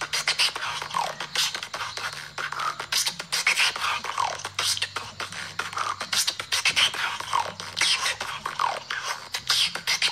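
A woman beatboxing: a fast run of clicks and snare-like hits over a low held bass drone, with several quick falling whistle-like sweeps.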